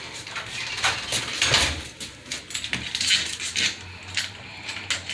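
Irregular metallic clinks, clicks and scrapes of door-handle hardware and screws being handled and fitted.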